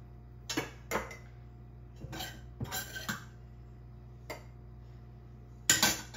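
Metal utensil and dishes clinking: a string of light, irregular knocks and clinks, with a louder clatter near the end.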